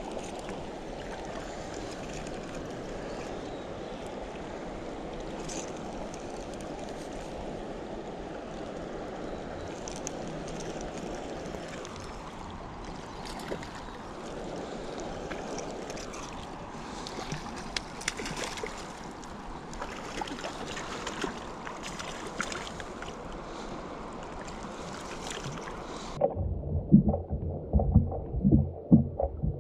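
Steady rush of flowing water with light wind, and small clicks and rustles of handling. Near the end the sound turns muffled, with heavy thumps and rubbing on the microphone.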